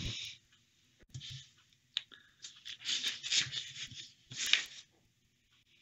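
Thin Bible pages rustling as they are handled and turned, in several short bursts with a few sharp clicks.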